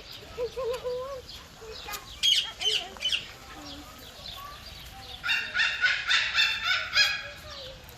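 Birds calling in a bird park, ending in a run of rapid repeated calls, about five a second, in the second half.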